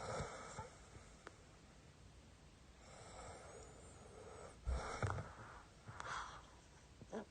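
A person snoring in slow, noisy breaths, with a snort about five seconds in and another breath about a second later.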